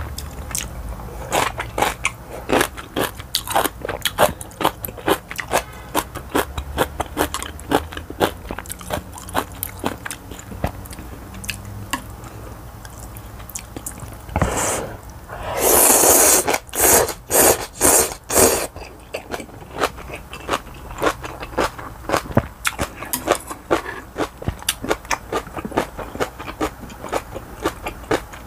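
Close-miked chewing and lip smacking as kimchi and rice are eaten, with many sharp wet clicks. About halfway through, instant ramen noodles are slurped loudly: one long slurp, then several short ones.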